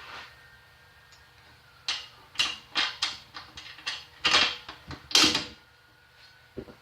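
Metal parts of an RBI molder planer being handled and fitted back together: a quick run of about ten knocks and clanks starting about two seconds in, the last ones leaving a short metallic ring.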